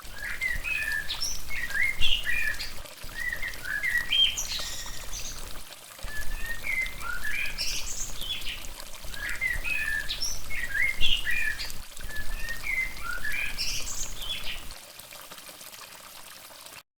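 A songbird chirping and twittering in quick, repeated phrases of short rising and falling notes. A steady low rumble lies under it and drops away about 15 seconds in.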